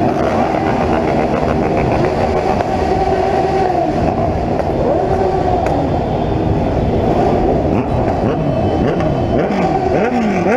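Many motorcycle engines running together in a slow group ride, several overlapping engine notes. Their pitch rises and falls as riders rev, with a run of up-and-down revs near the end.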